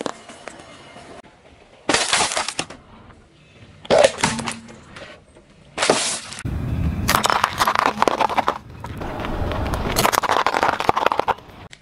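Car tyre rolling over and crushing small objects on asphalt in a run of short cuts: separate sharp crunching bursts about every two seconds, then a longer stretch of crackling and crunching through the second half as a wrapped snack bar and a hard candy cane are crushed.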